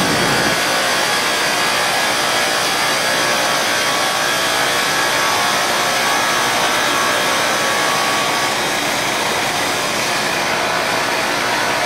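Fiber cement board sanding and edging line running: a loud, steady machinery din with several faint steady whines in it.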